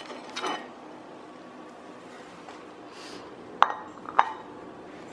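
A ceramic dinner plate set down on a hard floor: two sharp clinks about half a second apart, each with a short ring.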